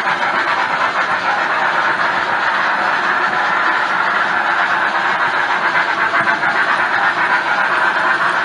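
HO scale model train running on sectional track, a steady rolling rumble of the wheels heard close up from a camera riding on one of the hopper cars.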